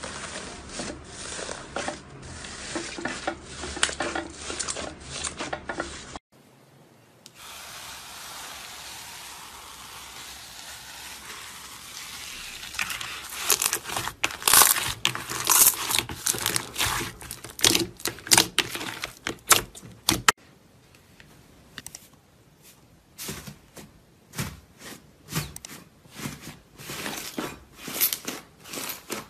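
Hands playing with slime. First comes a crinkling of gold foil pressed into slime; after a cut, dense crackling and popping clicks as slime is squeezed and stretched, loudest in the middle; after another cut, softer popping clicks as a second slime is kneaded.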